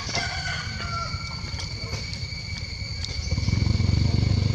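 Steady high insect drone made of two even, unbroken tones, as of cicadas or crickets chirring in the trees. From about three seconds in, a low rumble on the microphone grows louder.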